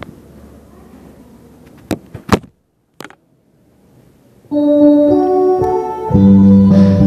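A few knocks from the phone being handled, with a brief dropout. About four and a half seconds in, keyboard music starts abruptly, and a bass line joins about a second and a half later.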